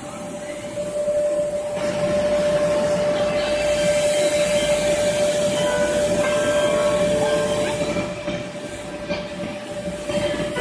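Electric blower of an inflatable bounce house running, a steady rush of air with one constant mid-pitched whine.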